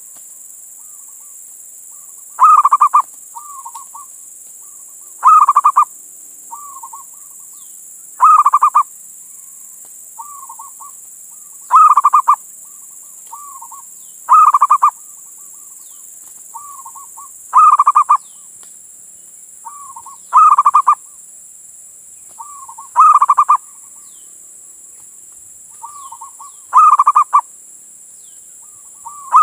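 Male zebra dove (perkutut) singing its rapid, rippling cooing phrase about every three seconds, with softer notes between. This is the male's song calling to a female.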